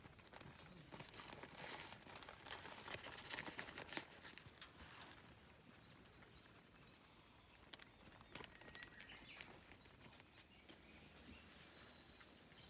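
Faint rustling and clicking, as of gear being handled, in the first few seconds, then near quiet with a few faint, short bird chirps.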